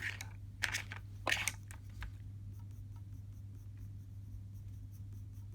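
Colored pencil scratching on paper: a sharp tap, then two short strokes in the first second and a half, followed by fainter light strokes and ticks, over a steady low electrical hum.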